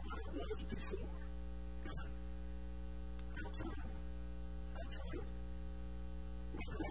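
Steady electrical mains hum with a buzzing stack of overtones in the audio feed, unchanging in pitch, with brief faint sounds breaking through every second or two.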